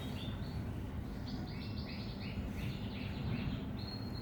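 A bird chirping over a steady low background noise: a quick run of short chirps in the middle, then a held high whistle near the end.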